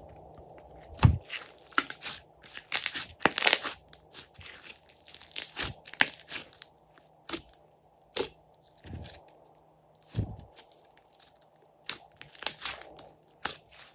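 Yellow-green glossy slime with mixed-in bits being kneaded, stretched and pressed by hand, giving irregular sticky crackles and pops.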